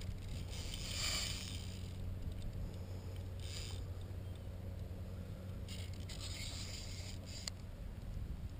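Fly reel being cranked by hand in three short spells, taking up line while a hooked redfish bends the rod, with one sharp click near the end. A steady low rumble runs underneath.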